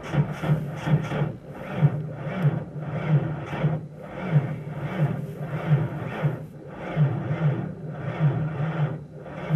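1993 Ford Ranger engine being cranked by its starter in deep cold without catching, turning over slowly and evenly at a little under two beats a second, then the cranking stops near the end.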